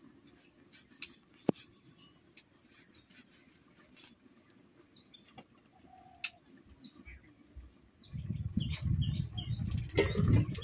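Small birds giving short, falling chirps, several times, over faint clicks from vegetables being sliced on a bonti blade. About eight seconds in, a louder low rumbling noise starts and runs on.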